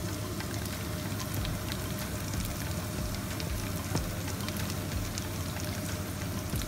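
Cubed potatoes sizzling and crackling in hot oil in a nonstick frying pan: a steady sizzle with many small pops, over a steady low hum, and one sharper click about four seconds in.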